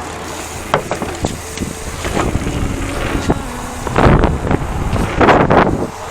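Mountain bike riding on a dirt trail: a steady rumble with scattered clicks and rattles, and two loud rushing bursts about four and five seconds in, with wind buffeting the microphone.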